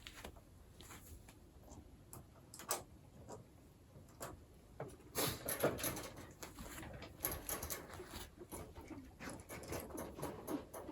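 Guinea pig making short, repeated calls: a few scattered at first, then coming quickly one after another from about halfway through.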